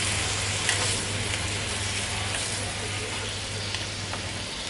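Chicken pieces sizzling in fish sauce in a frying pan over a low flame, with a few light clicks of chopsticks stirring them.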